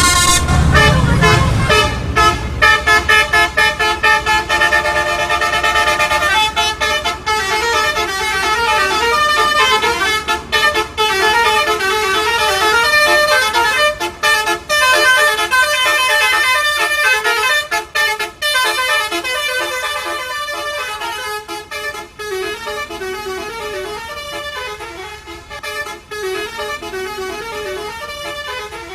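Basuri telolet horn, the multi-tone musical horn of Indonesian buses, playing tunes of quick stepped notes. It grows somewhat fainter in the last third.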